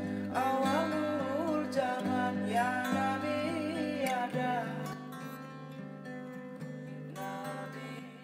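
Acoustic guitars and a ukulele strumming chords under a voice singing a wavering, ornamented melody. The singing drops away about halfway through, and the playing grows quieter as the song winds down.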